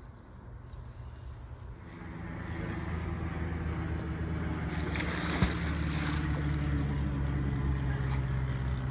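An engine's steady low drone that swells about two seconds in and then holds, with a brief hiss and a sharp click around the middle.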